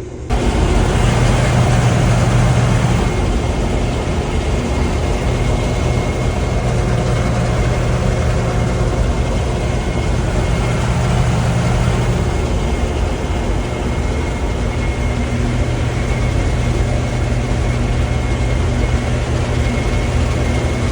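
Combine harvester running steadily under load, a low engine drone with a thin high whine above it.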